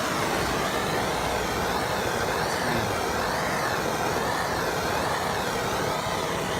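Handheld flame torch burning with a steady hissing rush of gas flame, wavering slightly as it is swept over sun-faded plastic to bring back its gloss.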